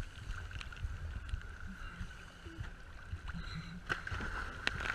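Choppy sea water sloshing and lapping against a GoPro's waterproof housing at the surface, heard muffled, with a faint steady whine underneath. A splash comes near the end.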